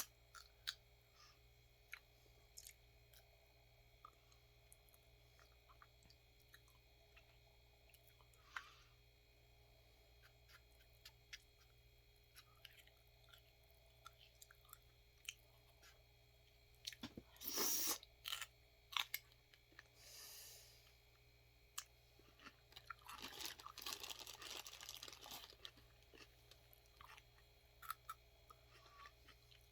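Faint, sporadic crunching and chewing of raw vegetables, with a louder crunching bite a little past halfway and a longer stretch of chewing about three quarters of the way through.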